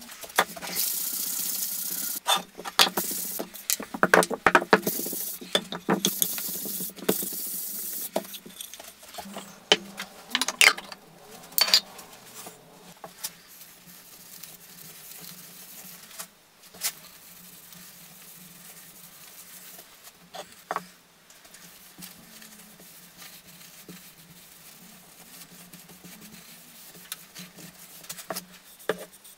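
A cloth wiping finishing oil onto a striped hardwood tea light holder: faint rubbing with occasional light clicks. For the first eight seconds or so there is a louder, rough hissing noise full of clicks.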